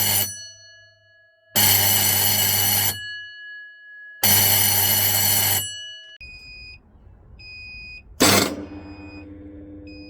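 Electric alarm bell rung in three bursts of about a second and a half each, its gong ringing on briefly after each burst. Then a quieter, high electronic beeping in short pulses, a sharp clatter about eight seconds in, and a low steady hum.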